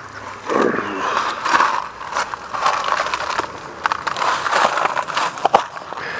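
Scraping, rustling and crunching as a person squeezes out through the hollow of a tree trunk, clothes and hands rubbing against the bark, with a few sharp cracks about five and a half seconds in.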